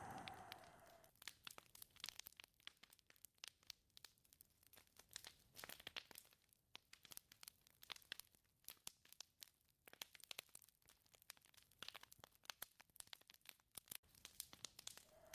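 Faint, irregular crackling and clicking. A whistling wind gust dies away about a second in and rises again near the end.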